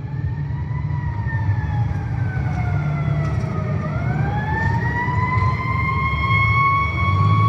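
Handheld angle grinder running free, not cutting. Its motor whine sags slowly in pitch for about four seconds, then climbs back and holds steady over a low rumble.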